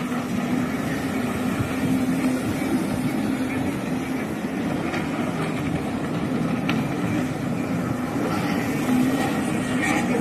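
Several jet ski engines running at speed offshore, making a steady, continuous drone that wavers slightly in pitch.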